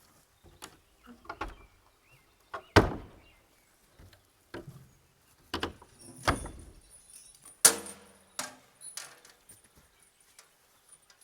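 A series of irregular sharp knocks and clatters, the loudest about three seconds in and again a little before eight seconds in.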